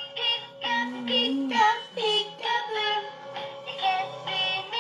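Animated plush peek-a-boo elephant toy playing its song through a small speaker: electronic, childlike singing over a simple tune.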